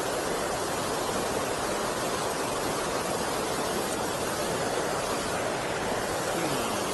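Water pouring over a river weir, a steady, even rush.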